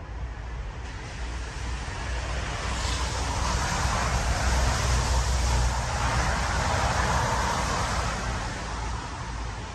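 A road vehicle passing, its tyre noise swelling to a peak mid-way and then fading.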